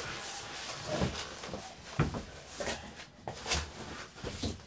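Cardboard boxes scraping and knocking as a long guitar box is pulled out of a larger shipping carton: a run of scuffs and thumps, the loudest about two seconds in.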